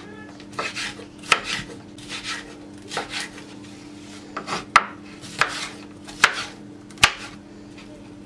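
Kitchen knife dicing a red pepper on a wooden cutting board: uneven knocks of the blade cutting through onto the wood, a few of them sharper.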